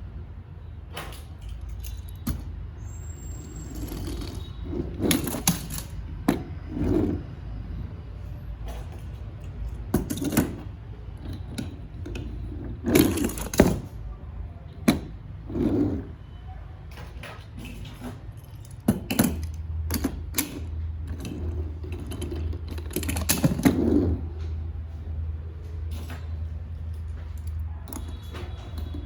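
Metal diecast toy cars being handled: irregular clicks, knocks and clatters of small metal parts, over a steady low hum.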